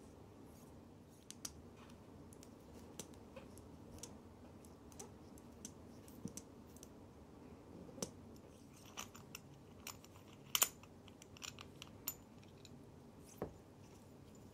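Handling noise of a steel wristwatch turned over in the fingers: faint scattered light clicks and taps at irregular intervals over a low room hum, the sharpest a quick pair about ten and a half seconds in.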